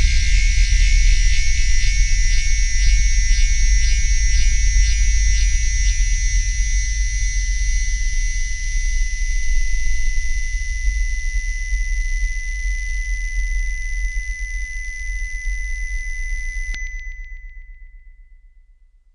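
Synthesized electronic drone: a deep sub-bass hum under a bright band of high hiss with a steady high whistle in it, and nothing in the middle range. Near the end the hiss cuts off suddenly, and the whistle and bass fade away.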